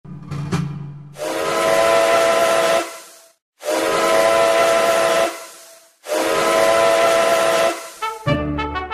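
Steam locomotive whistle blown three times in long blasts, each several steady tones sounding together over a hiss of steam. Brass music with a quick beat starts near the end.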